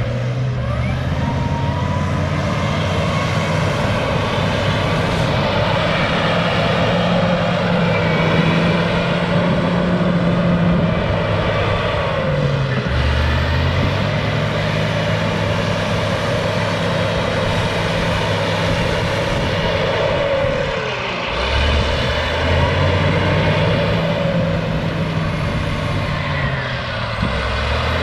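Cat D6H bulldozer's diesel engine running hard under load while it pushes trees. The engine pitch drops and comes back up twice, about halfway through and again near the end.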